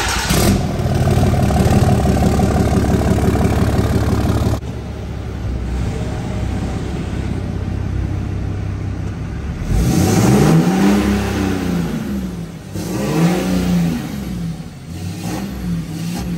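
Pickup truck engine running with its exhaust downpipe freshly re-clamped with a new 10-inch clamp, so the exhaust no longer leaks; steady and rattly at the exhaust tip, then quieter from inside the cab after a sudden drop about four and a half seconds in. From about ten seconds in the engine is revved up and back down three times.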